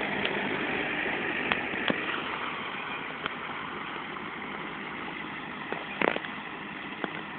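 Farm tractor's diesel engine running steadily as the tractor churns through a flooded rice paddy on cage wheels. A few sharp clicks or knocks stand out, the loudest about six seconds in.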